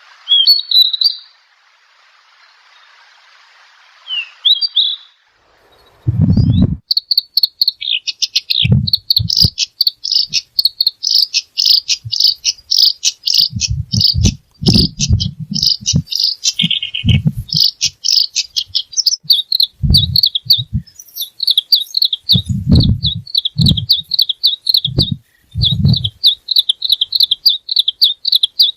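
A small songbird singing a long, fast run of high repeated notes, after two short chirps over a steady hiss. Dull low thumps come and go under the song.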